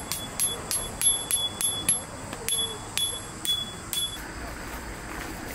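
A quick run of about a dozen metallic taps, each with a short bright ring, roughly two to three a second, stopping about four seconds in.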